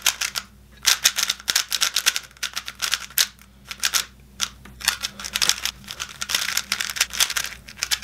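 Plastic MoYu GTS3 3x3 speedcube, non-magnetic, being turned fast by hand: rapid clattering clicks of the layers in quick flurries with short pauses between them.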